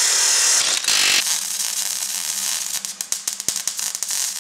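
Abrasive cut-off wheel cutting through metal tubing: a harsh hissing grind, loudest for about the first second, then a steadier hiss with a rapid crackle of ticks that fades near the end.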